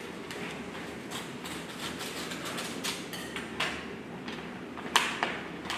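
Paper rustling and crackling as a sealed kraft-paper bid envelope is handled and opened, with a sharper crackle about five seconds in.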